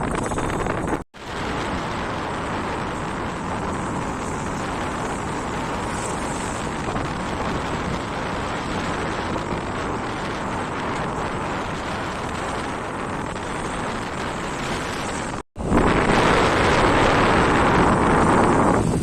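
Steady road and wind noise from a moving vehicle, broken twice by abrupt cuts to silence, about a second in and near the end; louder after the second cut.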